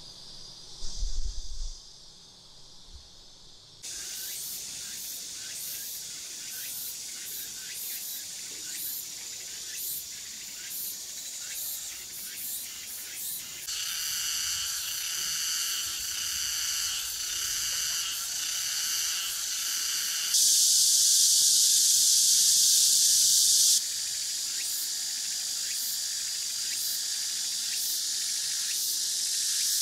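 High, shrill insect chorus, rapidly pulsing at first, then a steady hiss with several pitched bands, loudest for a few seconds in the second half. A low thump comes about a second in.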